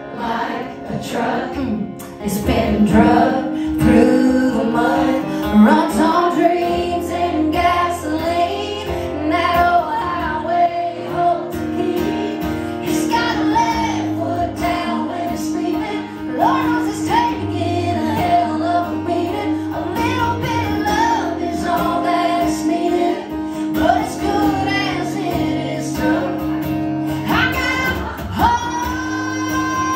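A woman singing a country song live into a microphone, in a strong voice with held notes, over an accompaniment that sustains steady low notes underneath.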